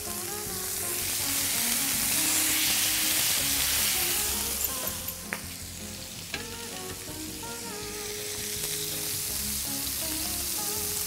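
Marinated chicken pieces sizzling in a lightly oiled frying pan, skin side down, being seared to a charred finish. A couple of short clicks sound near the middle.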